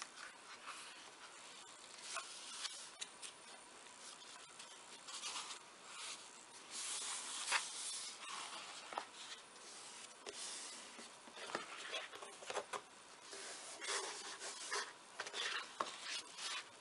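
Hands rubbing and pressing a glued paper strip onto thin grey cardboard, with irregular rustling of paper and card and a few light clicks as the card is handled and folded.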